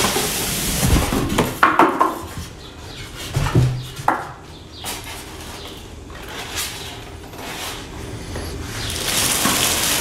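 Packaging being handled: a cardboard box opened and a white foam packing insert lifted out, with a few knocks and scrapes in the first seconds, then plastic wrap rustling near the end.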